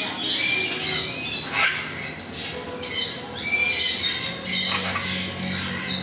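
Many caged birds chirping and squawking together, a busy chatter of short high calls that slide up and down in pitch.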